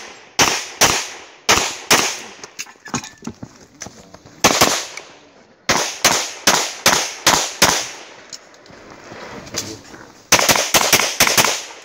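Single-stack competition pistol firing in quick strings of shots, about eighteen in all, with short pauses between the strings while a timed IPSC stage is shot.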